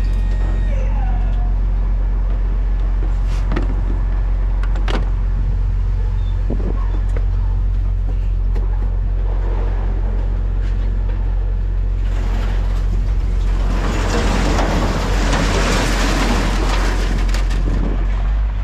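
Pickup truck engine idling with a steady low hum. A few sharp knocks come in the first several seconds, and a louder rushing noise swells up about two-thirds of the way through, then fades near the end.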